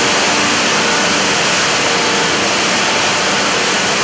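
Cotton gin machinery running: a loud, steady roar with a faint high whine.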